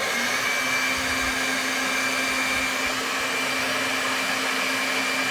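Handheld hair dryer running steadily on hot, blowing air onto a section of hair held up on a round brush. It makes an even rush of air with a steady low hum and a thin high whine.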